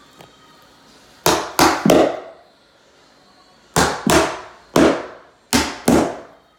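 Claw hammer driving the nails of carpet tack strip into an OSB subfloor: three quick strikes about a second in, then five more from about four seconds in.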